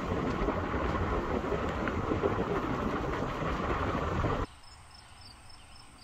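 Steady rumbling road noise of a vehicle driving down a dirt forest road, cutting off suddenly about four and a half seconds in. Faint, regular high chirping of insects follows.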